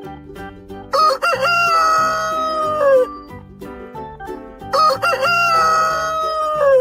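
Rooster crowing twice, two long cock-a-doodle-doo calls each ending in a falling note, over soft background music.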